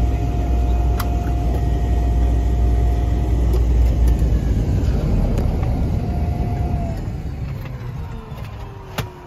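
Cessna 208 Caravan's Pratt & Whitney PT6A turboprop engine, heard from inside the cabin, running at idle with a low rumble and a steady whine. About seven seconds in, the whine starts falling in pitch and the rumble fades as the engine winds down after shutdown. A sharp click comes near the end.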